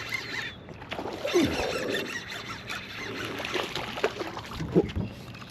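Squeaks, knocks and splashing while a largemouth bass is fought and reeled in to a small boat on a frog lure.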